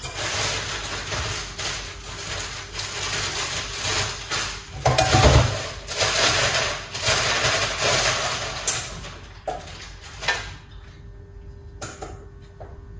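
Kitchen handling noise: a steady hiss with heavy knocks and clatter of pots and utensils, easing near the end into a few light clicks.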